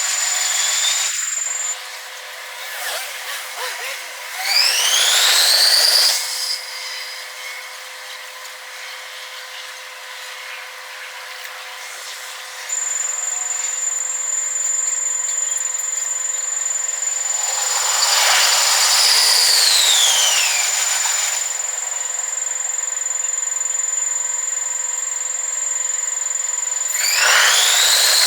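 Japanese railway level-crossing warning bells ringing, stopping about two seconds in and starting again about ten seconds later. Electric trains pass, their motors whining up in pitch early on and near the end, and down in pitch midway.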